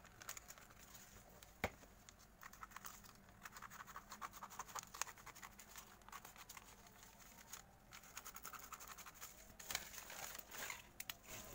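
Scissors snipping through two stacked sheets of paper along a pattern line: a faint, quick run of snips and paper rustle, with a brief pause about eight seconds in.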